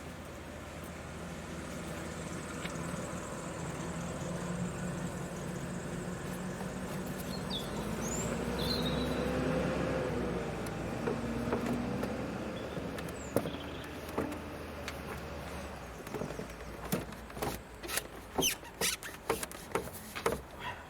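A low rumble with shifting engine-like tones that swells and fades over about fifteen seconds, then a quick run of knocks and clicks near the end as the heavy car battery is worked loose from its tray.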